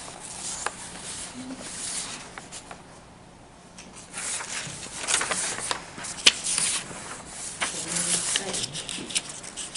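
Rustling and rubbing noises with scattered clicks. They are fainter for the first few seconds and grow louder and busier from about four seconds in.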